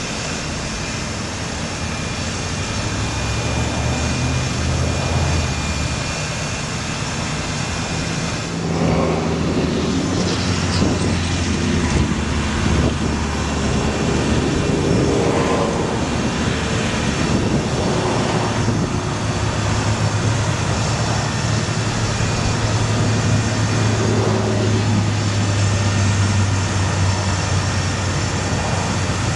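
Bucket truck engine running steadily, powering the hydraulics as the aerial boom is raised and extended, with a low drone that shifts in pitch a few times.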